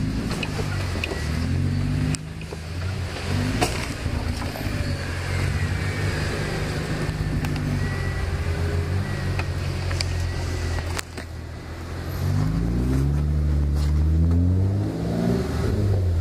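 Off-road Jeep engine running at low speed as it crawls over a rutted dirt trail, rising in revs a few times near the end as it pulls up the climb. A few sharp knocks come along the way.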